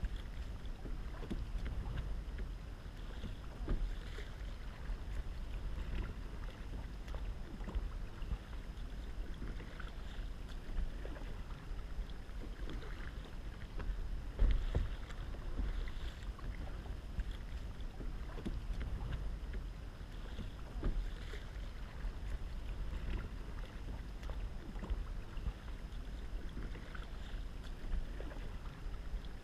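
Kayak being paddled on calm water: the paddle blades dip and splash now and then, over a steady low rumble of wind buffeting the microphone.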